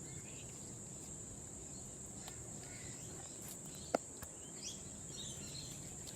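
Steady high-pitched insect chirring, with one sharp click about four seconds in.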